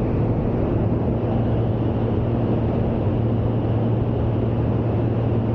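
A single-engine light aircraft's piston engine and propeller running steadily in cruise, heard on board, with a low hum over a rushing air noise.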